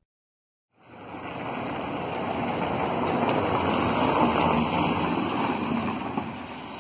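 Lowered Peugeot 408 rolling slowly out over wet concrete: a steady hiss of tyres and engine noise that starts about a second in, swells as the car passes close and then eases off.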